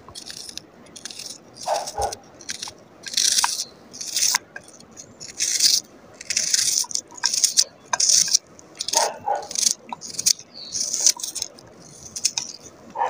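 A kitchen knife cuts through a raw onion held in the hand, with a crisp crunch on each cut. The cuts are irregular, about one or two a second. Now and then there is a short, lower sound.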